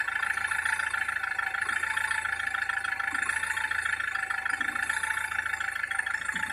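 SsangYong Kyron diesel engine idling steadily, listened to for the knock of a failing dual-mass flywheel.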